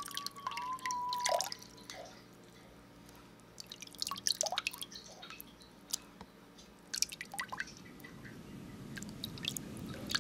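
Water drops falling into water, short single plinks that come in small clusters near the start, about four seconds in, about seven seconds in and again near the end. A held tone slides down and fades in the first second and a half, and a low rushing swells toward the end.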